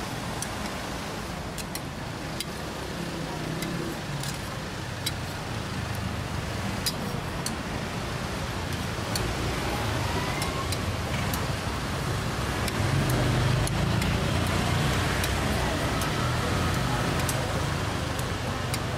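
Street ambience: steady traffic rumble with background voices and scattered light clicks, swelling louder about two-thirds of the way through.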